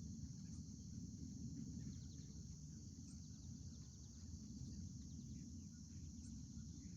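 Faint outdoor ambience: a steady high-pitched insect chorus with a few brief, faint bird chirps over a low background rumble.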